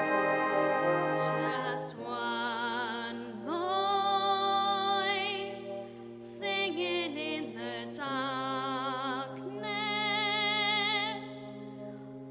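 Brass band concert music: a held chord, then slow solo melody notes with wide vibrato and scooping attacks over sustained accompanying chords.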